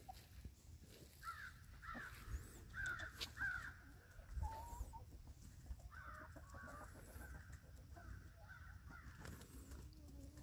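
Hens calling with short, arching squawks in runs of several, one run about a second in and another around six seconds in, over a low wind rumble on the microphone.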